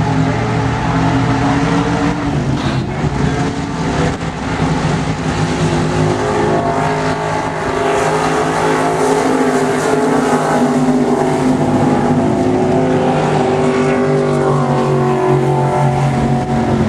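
Several dirt-track modified race car engines running together as the cars circle the oval, their tones rising and falling slowly as they pass.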